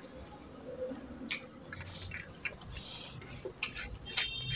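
Fingers mashing and mixing rice and curry against a ceramic plate: wet squishing with scattered sharp clicks of fingertips on the plate, the loudest about four seconds in, then a brief squeak near the end.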